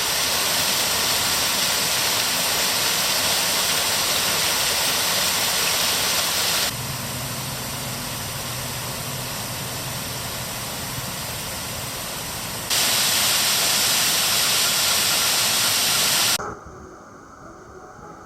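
Steady rushing hiss, like running water, that changes level abruptly twice and then cuts off sharply near the end, leaving a faint background with insects.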